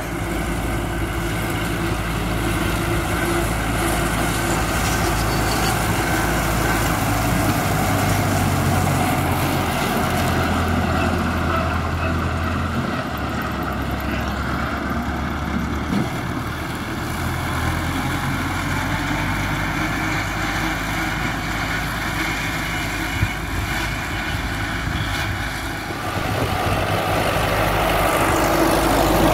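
MTZ-50 tractor's four-cylinder diesel engine running steadily under load while driving a PTO-driven drum mower. The engine note shifts a few times and gets louder near the end as the tractor comes close.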